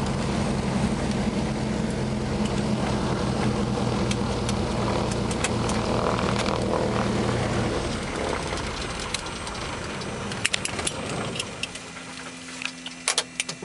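Twin piston engines and propellers of a Britten-Norman BN-2 Islander, heard from inside the cabin, running steadily on the ground. The engine sound dies away over the last few seconds, leaving a low hum and a few sharp clicks near the end.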